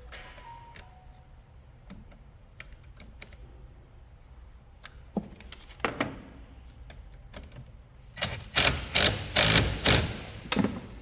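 Clicks and knocks of hands working on a car battery during its replacement: scattered light clicks, then about six loud clattering knocks in quick succession from about eight seconds in.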